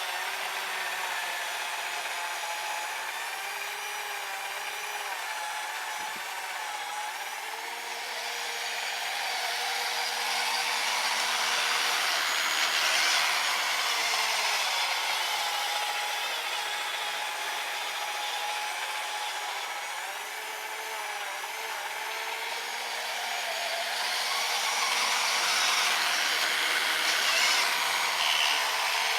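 RC snowblower's brushed 550 electric auger motor whirring as it churns through powder snow, with the pitch shifting and the sound swelling louder twice as it bites into the snow.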